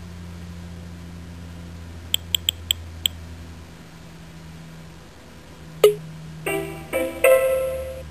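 Star7 handheld's interface sound effects: five quick ticks about two seconds in, then near the end a sharp pluck followed by a short run of pitched, plucked-sounding musical notes, over a low steady hum.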